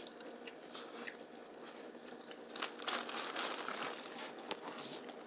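Eating sounds: biting, crunching and chewing, with scattered sharp clicks and a louder stretch of crunching about three seconds in.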